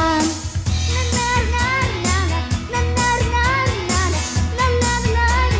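A young girl singing into a microphone over children's pop backing music with a steady bass beat.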